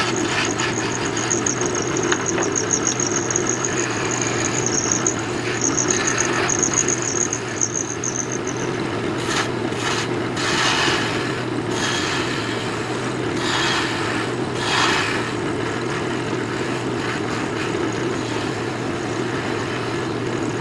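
Craftsman 12-inch wood lathe running while a hand-held turning tool cuts the spinning pipe-mouthpiece blank. A pulsing high squeal sounds through the first half, and repeated scraping cutting passes follow through the middle.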